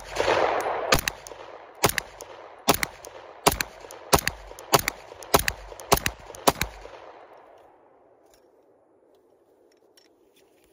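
Gen 4 Glock 17 9mm pistol fired in slow, steady single shots with 115-grain full metal jacket ammunition: about ten shots a little under a second apart, each followed by echo, with the echo dying away over a second or so after the last shot.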